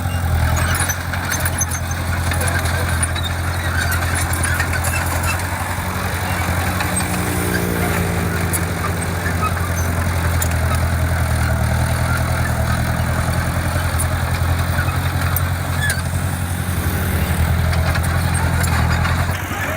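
Heavy diesel engine of construction equipment running steadily, with occasional light clicks over the engine sound.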